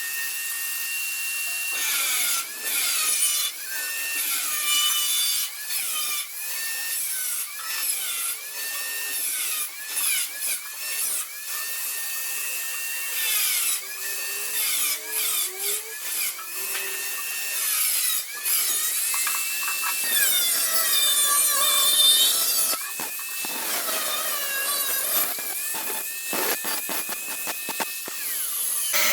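An electric hand grinder working on sheet metal. Its high whine keeps dipping in pitch and recovering as the tool bites into the metal and is eased off.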